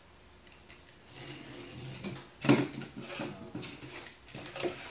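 A piece of corrugated cardboard being handled and flipped over on a workbench: rustling and scraping, with one sharp knock about two and a half seconds in and smaller knocks after it.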